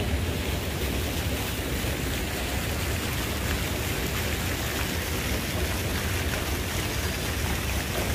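Fountain jets splashing into shallow pools: a steady, even rushing of water that starts abruptly and cuts off suddenly near the end.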